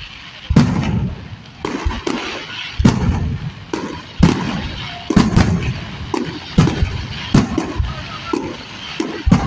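Aerial fireworks bursting overhead: a string of sharp bangs at irregular intervals, roughly one a second, each followed by a short low rumble.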